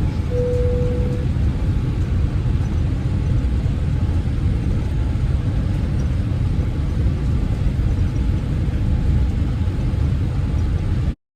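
Steady low rumble of a moving vehicle heard from inside it, with a brief steady tone about half a second in. The rumble cuts off abruptly near the end.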